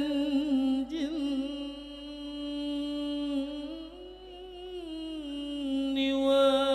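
A man singing solo into a microphone, unaccompanied, holding one long drawn-out note of an Arabic sholawat with a wavering vibrato. Its pitch steps up a little about halfway through, then settles back, and the voice swells again near the end.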